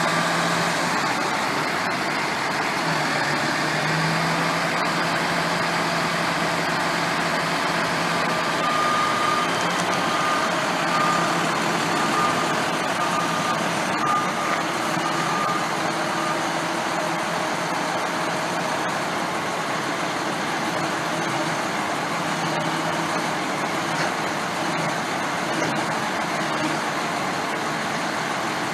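Utility truck's engine running steadily while it drives the hydraulics of a tandem reel loader as it lifts a cable reel aboard. About nine seconds in, a run of short, evenly spaced beeps at one pitch starts, a little more than one a second, and stops about sixteen seconds in.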